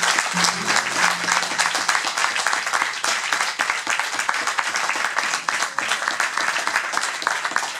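Audience applauding steadily. A last guitar chord rings briefly under the clapping at the start.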